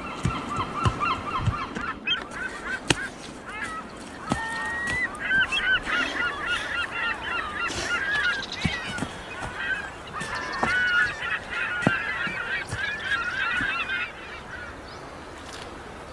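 A flock of geese honking, with many short calls overlapping, thickest through the middle and fading near the end. Running footsteps thud on the woodland floor in the first few seconds.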